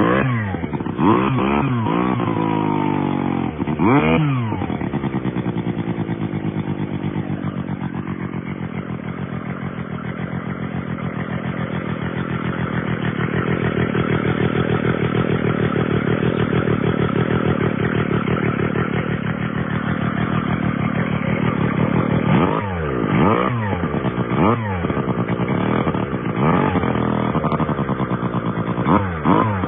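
Sachs-Dolmar KMS4 chainsaw's Wankel rotary engine being revved with quick throttle blips, each a fast rise and fall in pitch. For a long stretch in the middle it runs steadily, then the throttle is blipped repeatedly again over the last several seconds.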